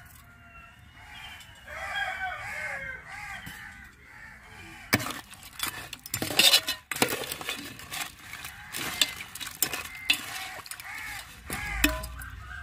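A ladle stirring a pot of simmering crab soup, clinking and scraping against the metal pot a few times in the middle. Hens cluck in short runs of repeated calls near the start and again near the end.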